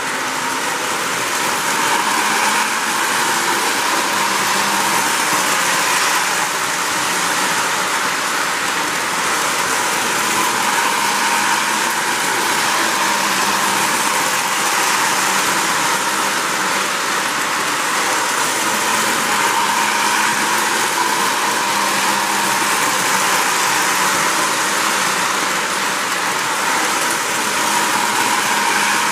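Lionel 736 O-gauge steam locomotive running a train of about ten cars around three-rail track: a steady rolling and motor noise with no clear beat.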